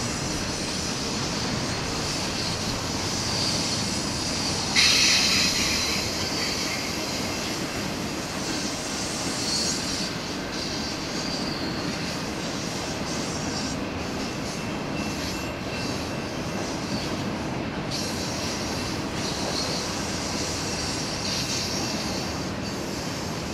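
Freight train rolling past, steel wheels on rail running with a steady rumble and a wavering high-pitched squeal, with a sudden louder burst about five seconds in.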